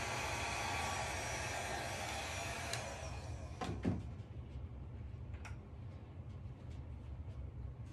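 Handheld electric hot-air blower running steadily over a wet acrylic pour painting, then switched off about three seconds in. A single knock follows just before four seconds, and a low hum continues underneath with a few faint clicks.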